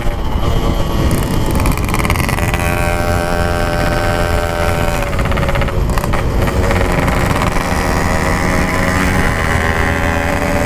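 Yamaha RX-King's 135cc single-cylinder two-stroke engine running under way through a stock-style 'packing power' exhaust, holding a fairly steady pitch.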